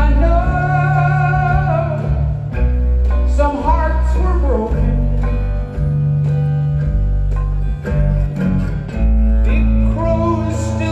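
Live band music, a song performed with a sung vocal line over guitars and a strong, sustained bass, the voice holding long, wavering notes.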